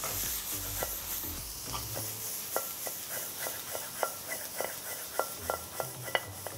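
Finely chopped vegetables sizzling in a hot wok as a wooden spatula stirs them. From about two seconds in, the spatula knocks against the metal wok in sharp taps, about three a second.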